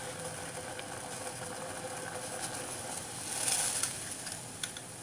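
Spiced water boiling in a stainless steel pot on a gas stove: a steady simmering hiss with a faint hum. About three and a half seconds in there is a brief louder hiss as the tea leaves go in, then a couple of light clicks.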